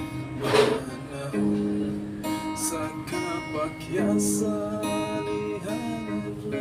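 Acoustic guitar strummed in slow chords, a stroke about every second, each chord left to ring.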